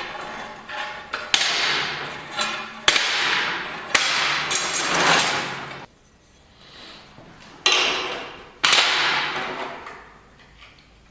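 Metal being struck in a workshop: about five sharp clanks, each ringing on for about a second. Three come in the first half and two near the end, after a short pause.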